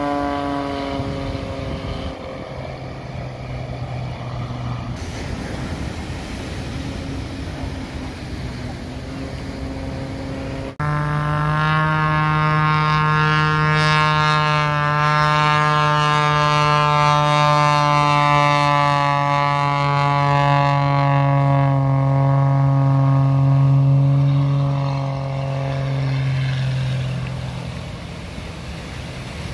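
Propeller-driven aerobatic plane's piston engine droning overhead. It drops back after a couple of seconds, then comes back loud after an abrupt break about ten seconds in. Its pitch sinks slowly as the plane passes, and it fades away near the end.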